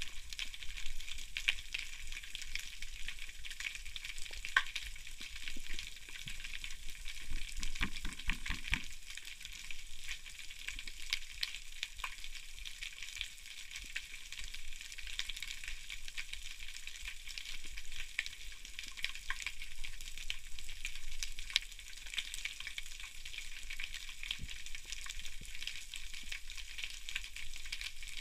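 Underwater crackle of snapping shrimp on a rocky reef: a dense, steady crackling of countless tiny clicks, with a brief low rustle about eight seconds in.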